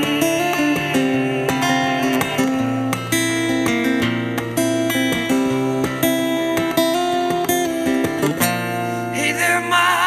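Acoustic guitar strummed in chords, an instrumental passage of a live song, with a singing voice coming back in near the end.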